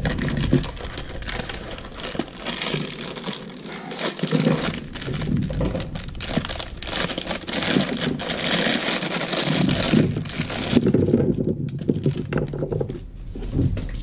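Clear plastic packaging bag crinkling and rustling as a through-hull wiring kit is unpacked by hand. The crinkling is densest through the middle, then thins to a few light handling sounds about eleven seconds in.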